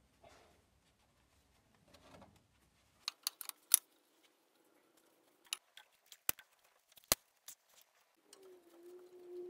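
Sharp metal clicks and taps of a jaw puller being fitted onto an engine's crankshaft pulley: a quick cluster about three seconds in, then a few single clicks over the next four seconds. Near the end a low, steady tone starts.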